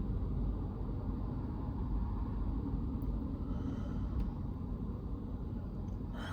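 Steady low rumble of a kei van driving, road and engine noise with no music or speech, and a short click near the end.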